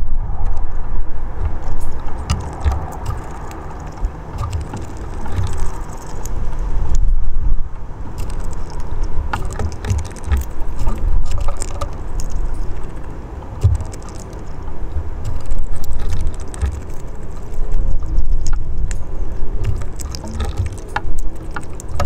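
A low outdoor rumble that swells and fades every few seconds, with scattered light, sharp clicks and taps of hawfinches pecking at seeds in a clay dish on a wooden bird table.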